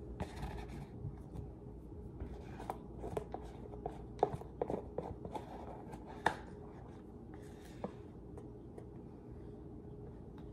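Spatula scraping and tapping inside a plastic whipped-topping tub: a scatter of light scrapes and sharp clicks, the loudest about four and six seconds in, over a faint steady hum.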